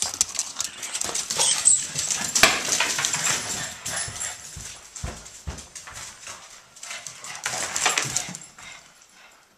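Two Boston terriers play-fighting, with growls and yips over claws scrabbling and skittering on a tile floor; loudest a couple of seconds in and again near the end.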